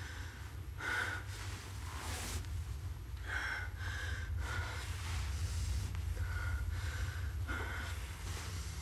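A woman breathing hard in short, gasping breaths, about nine of them, over a steady low hum.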